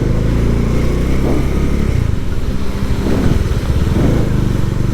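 Motorcycle engine running during a test ride, its pitch shifting a couple of times with the throttle.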